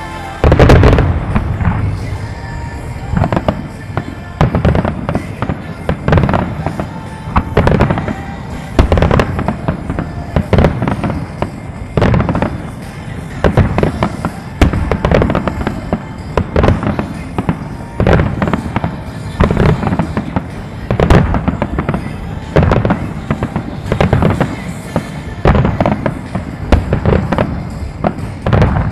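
Music starmine fireworks: aerial shells firing and bursting in rapid volleys, sharp booms and crackles one after another, with the show's music playing underneath.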